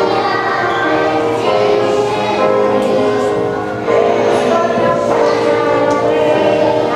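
A group of young children singing a song together, with music.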